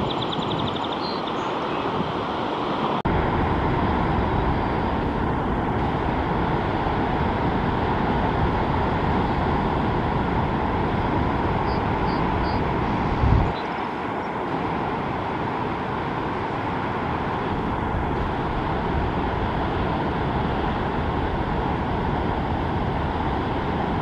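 Steady ocean surf mixed with wind on the microphone, with a short low thump about halfway through. A few faint high bird chirps come at the start and again about halfway.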